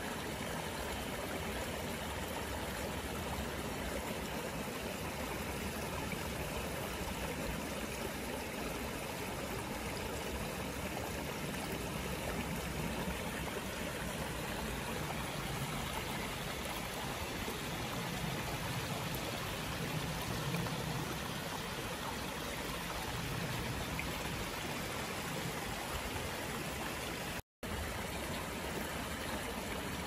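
Steady flowing water, like a stream, running evenly throughout. It cuts out completely for a split second about 27 seconds in.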